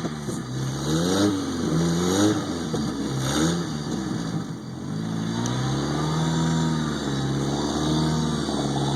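1995 Jeep Wrangler's engine revving up and falling back several times in quick succession, then held at a steadier speed with a wavering pitch, as the Jeep strains to get out of a snowbank it is stuck in.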